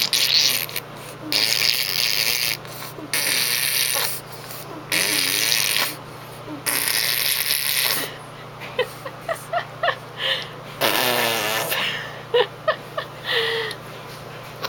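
Baby blowing raspberries, a "pbbbttt!" made by buzzing air through the lips. There are about six long bursts of a second or so each, with short squeals and voice sounds between them in the second half.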